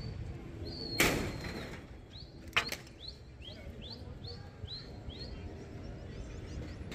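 A bird calling in a quick run of about eight short chirps, roughly three a second. Before it come two sudden loud bursts, about a second in and again about a second and a half later, over a low steady city hum.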